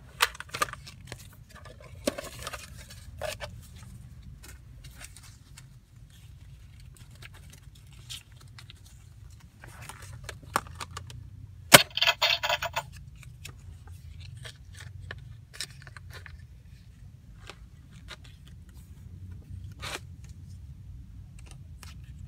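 A plastic Hello Kitty mini ATM savings bank being handled: scattered small clicks and scrapes, with one sharp click about 12 seconds in followed by about a second of scraping. A low steady rumble runs underneath.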